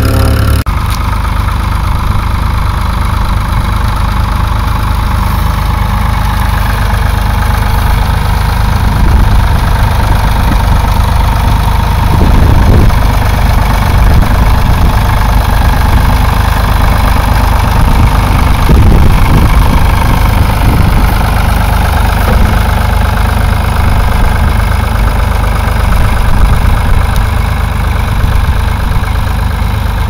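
Ford 3000 tractor's three-cylinder engine running steadily under load as it pulls a plough, with a heavy low rumble of wind on the microphone underneath.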